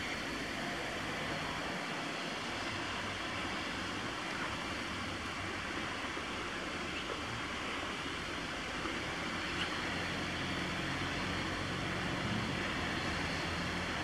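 Steady hiss of rain falling on trees and pavement, with wind in the foliage, during a thunderstorm.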